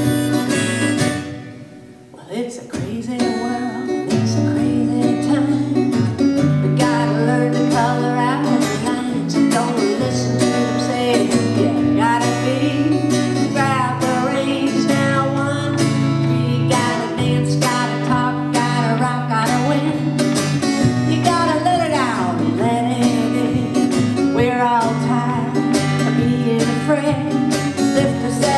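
Live folk song: a woman singing to her own strummed steel-string acoustic guitar. The music drops away briefly about two seconds in, then guitar and voice come back in and carry on steadily.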